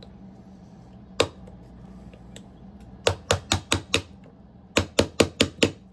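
Hammer tapping a chisel to break a spot-welded connector tab off the cells of a Ni-Cd battery pack: one sharp strike, then two quick runs of about five light taps each.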